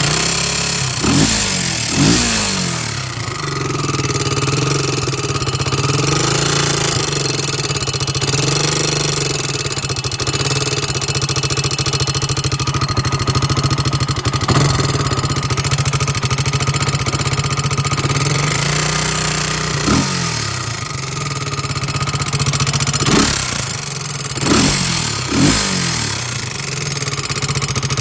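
2002 Honda 300EX quad's single-cylinder four-stroke engine idling with a loud tick, which is louder on the right side of the motor, and revved briefly several times. The owner does not know the cause of the tick.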